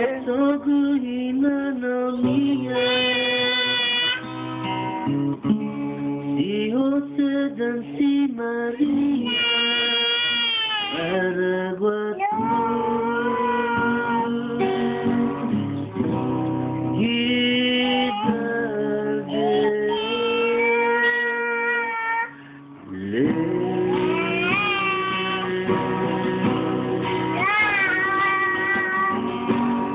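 Acoustic guitar strummed while a man and a small child sing together. The music breaks off for a moment about two-thirds of the way through, then carries on.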